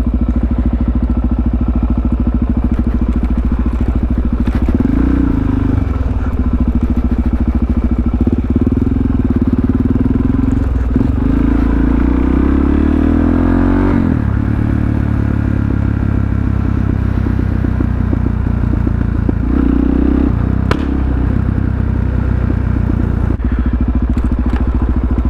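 Supermoto motorcycle engine running at low speed over rough ground, the revs rising and falling, with a brief climb in pitch a little past halfway. A second motorcycle engine is heard along with it, and there is a single sharp click near the end.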